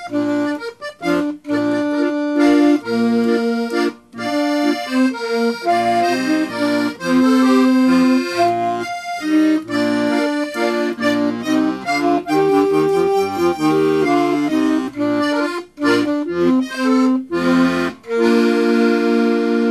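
Piano accordion playing a lively melody over chords, ending on a long held chord near the end.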